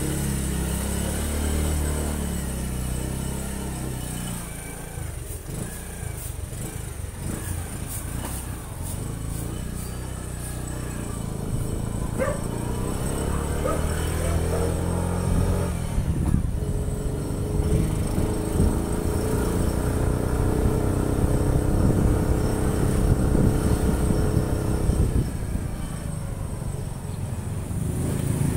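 Motorcycle engine running while riding, its pitch rising and falling as the bike speeds up and slows, over a low road and wind rumble.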